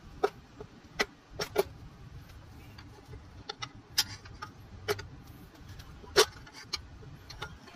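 Irregular sharp metallic clicks and knocks as the stuck crankcase cover of a 5 HP Briggs & Stratton engine is pried with a flathead screwdriver and wiggled back and forth to break it loose.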